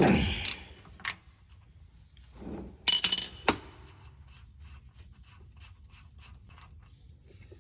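Metal tool sounds from a socket wrench on the 24 mm differential plug: a few sharp clinks and clicks, then a run of faint, evenly spaced ratchet ticks.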